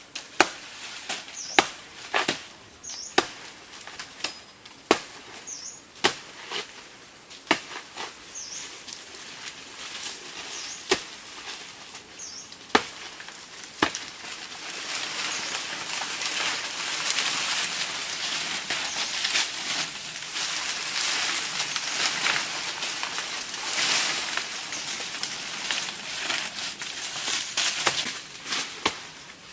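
A blade chopping into a banana plant's trunk: about a dozen sharp strokes at uneven intervals. About halfway through they give way to a long rustling of leaves that grows louder.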